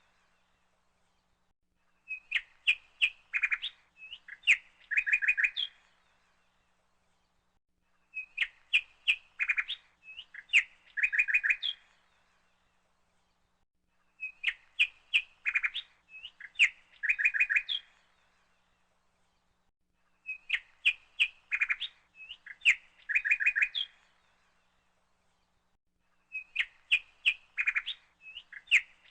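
Recorded birdsong laid in as a background track: a short phrase of quick chirps, played twice in a row and looped so the identical pattern repeats about every six seconds, with silence between the repeats.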